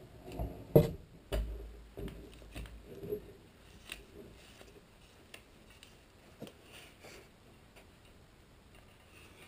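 Scattered light knocks and clicks from handling tools and plywood while spreading glue, loudest in the first second and a half, then fainter, sparser ticks.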